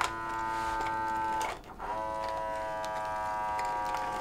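Automatic blood pressure monitor's small pump motor whirring as it inflates the arm cuff. It stops briefly about a second and a half in, then runs again a little lower in pitch and cuts off near the end.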